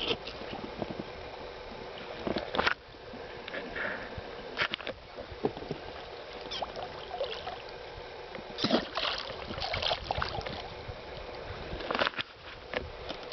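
Scattered knocks and clatter of people moving about and handling fishing tackle in a small boat, with a cluster of louder knocks near the middle.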